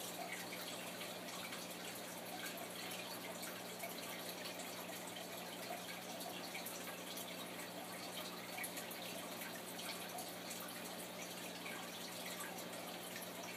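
Faint, steady trickling and dripping of aquarium water circulation, full of tiny ticks, over a constant low electric hum from the tank's equipment.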